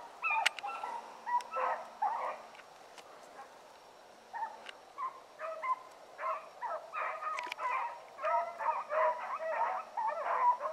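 Rabbit-hunting dogs baying on a rabbit's trail: a stream of short barking calls from more than one dog, dropping away briefly about three to four seconds in, then picking up again.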